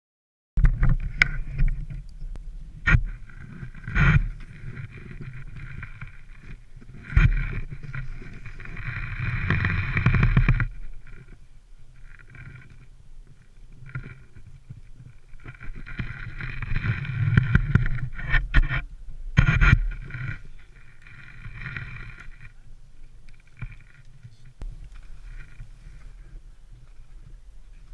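Rumble and hiss of wind buffeting a small camera microphone, swelling and easing in long gusts, with sharp knocks and scrapes of ski-touring gear.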